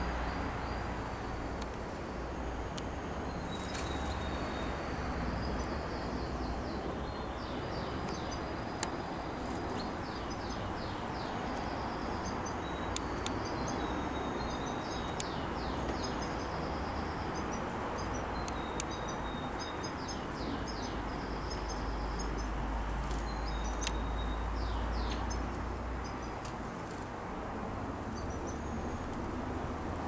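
Caged canaries chirping and singing short, fast trills, set against a steady background hiss, with a few sharp clicks.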